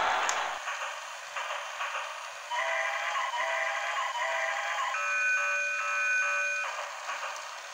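Battery-operated transforming robot toy playing an electronic tune from its small speaker: stepping beeps from a couple of seconds in, then a held chord of several notes that cuts off near the end, with no bass.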